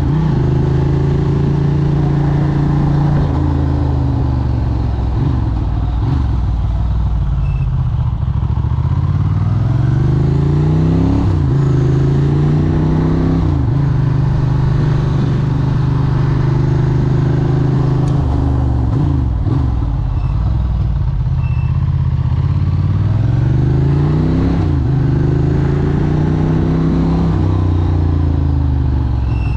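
Moped engine running under way, its pitch rising and falling several times as the revs change, with a steadier stretch in the middle.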